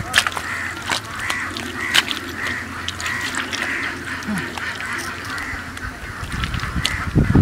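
Waterfowl calling in a steady series, about two calls a second, with scattered sharp clicks.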